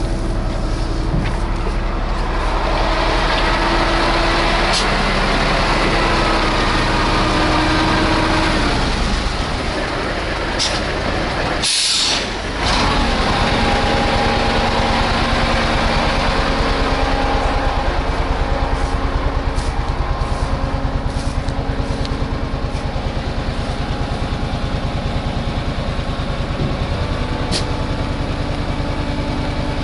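Loaded Ural six-wheel-drive dump truck's engine working as the truck drives through deep mud, its revs falling back about eight seconds in. A short hiss near the middle, then the engine running steadily.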